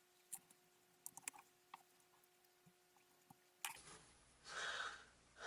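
Near silence broken by a few faint, separate clicks of small plastic model-kit pieces being handled and fitted together, with a faint noisy stretch near the end.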